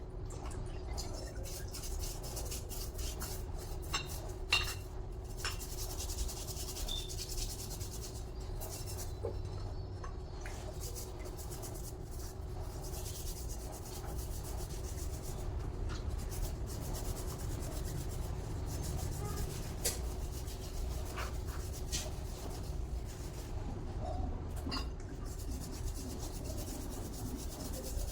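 Metal parts being handled during an alternator rebuild: rubbing and scraping with scattered light clinks, the sharpest about four and a half seconds in. A steady low hum runs underneath.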